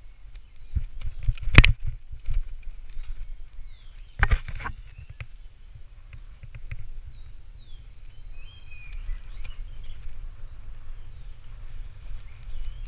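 Metal gate being handled: two sharp metallic knocks with a short ring after the second, over a low rumble of movement and wind on the microphone. Faint high chirps are heard in the middle.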